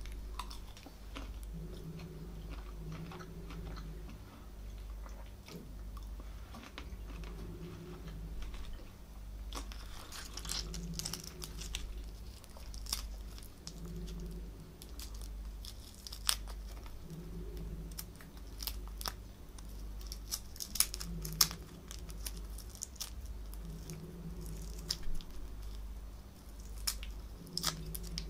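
Close-up chewing of boiled prawns, with sharp crackles and clicks of the prawn shells being pulled off by hand.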